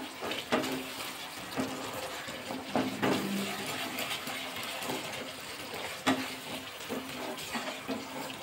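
Thick spice paste with sour yogurt sizzling over a low flame in a nonstick kadai, while a wooden spatula stirs it and scrapes the pan in irregular strokes.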